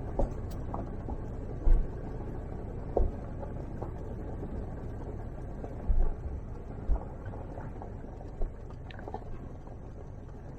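Vehicle driving on a dirt road: a steady low rumble of engine and tyres, with about half a dozen short low thumps, the loudest near two and six seconds in.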